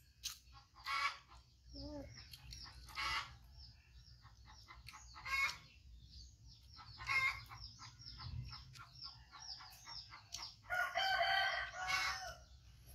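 A rooster crows once near the end, a loud call of about a second and a half, with small birds chirping throughout.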